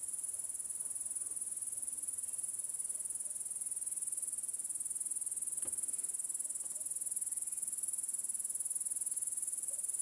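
Chorus of grass insects chirring in a steady, high-pitched, unbroken trill.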